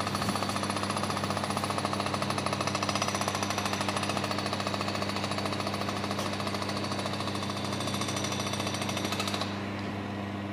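Rapid, steady mechanical hammering or rattling, many strokes a second, over a steady low hum. It drops in level near the end.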